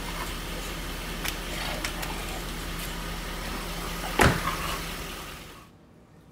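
Steady low hum of a car in a garage, with a few light knocks and a car door shut with a loud thud about four seconds in. Near the end the sound cuts to quiet room tone.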